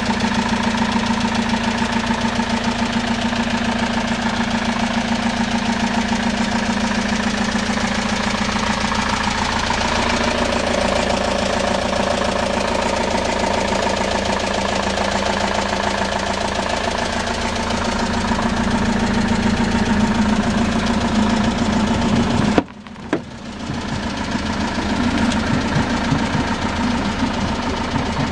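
Citroën Jumper's 2.2 HDi four-cylinder turbodiesel idling steadily. About three-quarters of the way through there is a short knock, and the sound dips for a moment.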